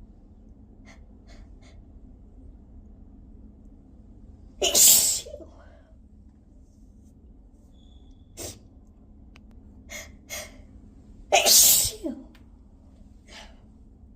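A woman sneezing twice, with two loud, wet sneezes about six and a half seconds apart. Short sharp breaths and sniffs come between them.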